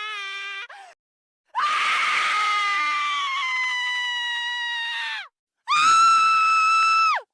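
High-pitched screaming sound effects: the end of one scream, then a long scream of about four seconds that slowly sinks in pitch, then a shorter, louder, steady scream that drops off sharply at the end.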